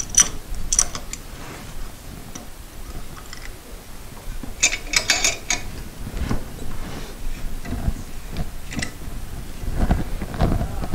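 Steel C-clamp being fitted and its screw turned down onto a glued, split wooden post block to squeeze the crack shut. Scattered metallic clicks and rattles come at the start and again about five seconds in, with a few dull thumps of handling near the middle and end.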